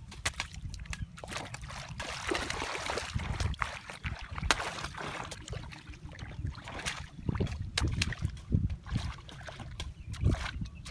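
Shallow muddy water splashing and sloshing as people wade through it and churn and scoop it by hand and with a stick, in irregular splashes and drips.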